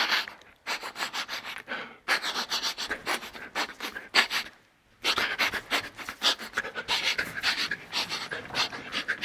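A man sniffing hard in rapid runs of short breaths, a comic imitation of a sniffer dog following a scent, with a brief pause about halfway.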